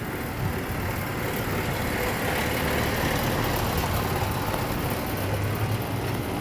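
Steady outdoor city-rooftop background noise: a low mechanical hum under a rushing sound that swells a little in the middle.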